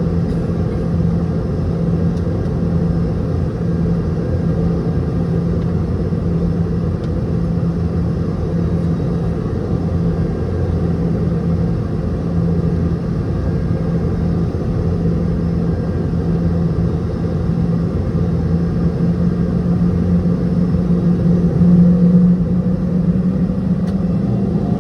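Cabin sound of a Boeing 717-200's rear-mounted Rolls-Royce BR715 turbofans running: a steady rumble with an engine hum that rises slightly in pitch near the end.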